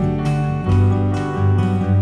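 Background music with a steady beat and low bass notes.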